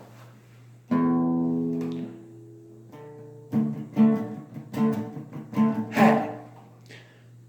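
Guitar music. A chord rings out about a second in and fades, then single plucked notes follow one after another.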